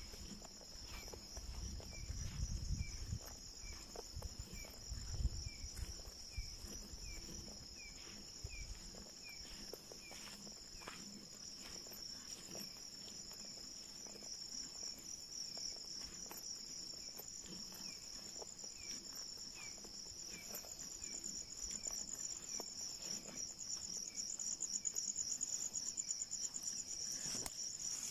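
Night insect chorus of crickets: a steady high trill that grows louder and more pulsing in the last third, with another insect chirping about twice a second through the first half. Low thuds of footsteps come in the first nine seconds.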